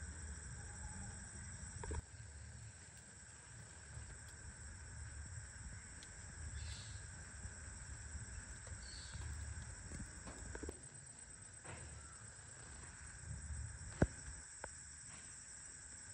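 Steady, high-pitched drone of insects over a low rumble, with two short chirps near the middle and one sharp click about 14 seconds in.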